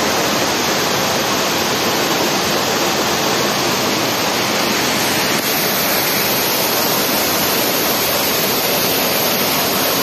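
Düden Waterfall's water pouring and splashing into the river pool, a loud steady rush heard close up from the cave behind the falling water.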